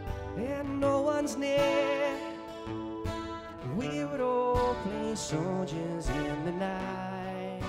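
Acoustic guitar strummed, with a wordless melody line over it that slides up into its notes several times.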